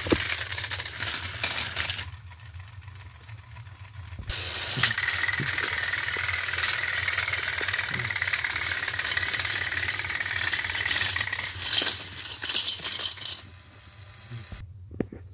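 Battery-powered Thomas & Friends toy engines running on plastic track: a small electric motor whining under the rattle of wheels and trailing cars. It is quieter for about two seconds early on, then steady and louder, and it drops away near the end.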